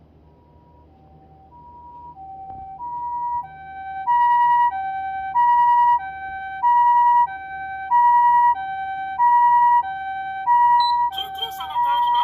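Osaka Siren MK-D1 siren amplifier sounding the Japanese ambulance two-tone "pee-paw" siren, a high note and a low note alternating about every two-thirds of a second. It starts faint and swells to full volume over the first four seconds, then holds steady.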